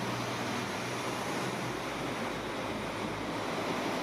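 VIAS class 615 Itino diesel railcar pulling out of a platform past the camera, a steady rushing noise of engine and running gear.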